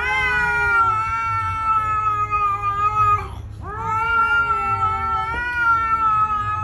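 A cat yowling twice at another cat in a face-off. Each call is a long, drawn-out yowl of about three seconds, with a short break between them: the threat call of a cat squaring up to a rival.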